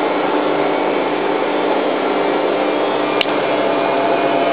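Hoover Time Manager H130E washing machine spinning at a steady speed, its motor humming with a few held tones, before its next speed step-up. A brief sharp click about three seconds in.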